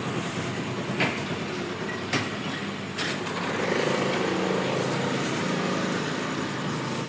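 Honda Activa scooter engine running as the scooter moves off, a steady hum that rises for a few seconds midway, with a few light knocks in the first three seconds.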